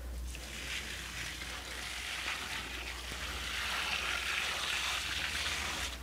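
Water poured from a bucket into the drum of a top-loading washing machine, splashing steadily onto the clothes as the tub is filled by hand. The pour grows a little louder after the middle and stops just before the end.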